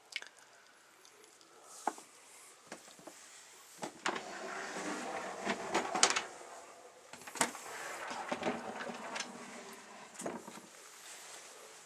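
Clear plastic snake tubs scraping as they are slid along the shelves of a tub rack, with a few light clicks at first, then a longer stretch of scraping and sharp knocks in the middle.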